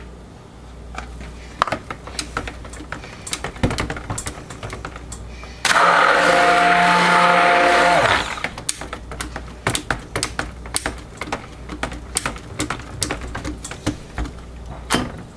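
Stick blender run for about two seconds in a bucket of soap batter, a steady whir that starts and stops abruptly, as the batter is pulse-blended. Light knocks and clicks come before and after it.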